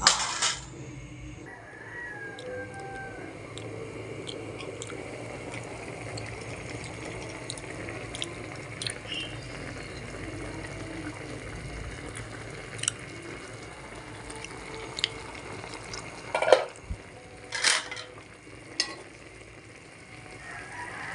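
Pot of chicken adobo simmering with a steady low bubbling hiss, broken by a few sharp clinks of the metal pot lid and a spatula against the pot, most of them in a cluster a few seconds before the end.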